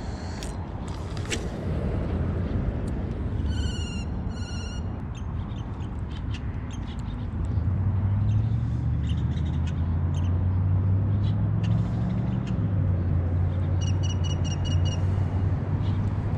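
A bird calling in short series of rapid repeated high notes, twice about four seconds in and again near the end, over a low steady rumble that grows louder about halfway through.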